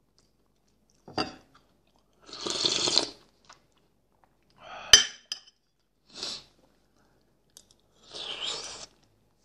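Chicken broth slurped from a spoon in several separate noisy sips, the longest about two and eight seconds in. Just before the five-second mark the spoon clinks sharply against the dish, the loudest sound.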